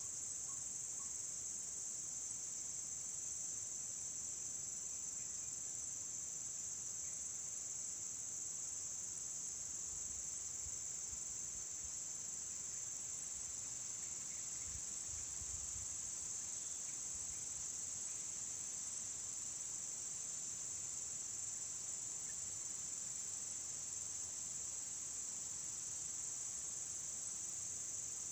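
Steady, high-pitched chorus of insects, crickets or cicadas, droning on without a break.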